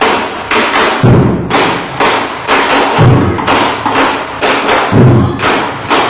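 An ensemble of large Vietnamese wooden barrel drums with hide heads, beaten with wooden sticks in a steady rhythm: a deep stroke about once a second with a lighter, sharper stroke between each pair, roughly two strokes a second.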